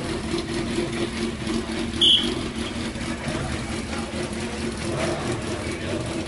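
Race car engine idling steadily, with a short high-pitched beep about two seconds in and another at the very end.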